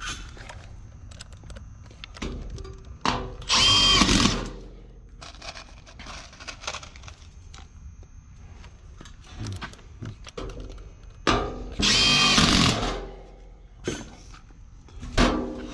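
Makita cordless drill running twice, about a second each and several seconds apart, against the heater's sheet-metal cabinet, its motor whine rising and falling. Short knocks and clatter of handling sound between the runs.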